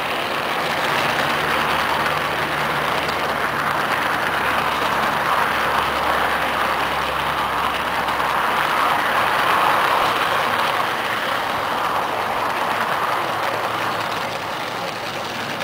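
Large-scale garden railway train running along its track, heard up close from a camera riding on the train: a steady rolling noise of wheels on the rails.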